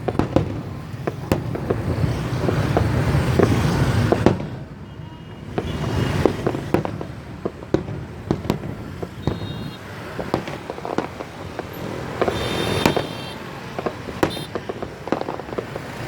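Fireworks going off: a steady run of sharp bangs and crackles, some single and some in quick clusters, over a low steady rumble.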